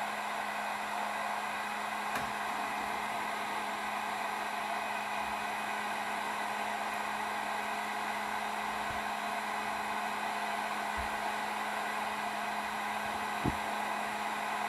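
Electric heat gun running steadily, a constant rush of hot air over a low motor hum, used to shrink heat-shrink tubing onto wire splices. A couple of faint taps come near the end.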